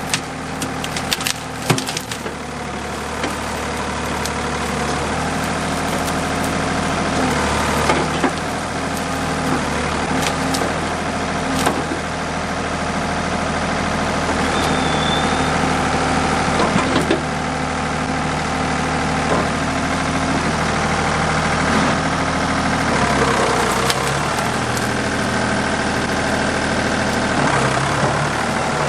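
Ford 555 backhoe's diesel engine running steadily, its note stepping up and down a few times as the machine works. A few sharp cracks and knocks near the start.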